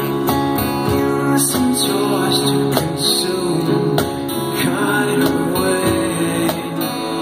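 Live acoustic band performance: acoustic guitars strumming while a male voice sings.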